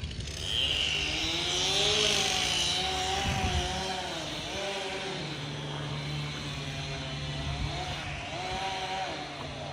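Gas chainsaw running, its pitch rising and falling as it is throttled, with a loud high hiss in the first few seconds.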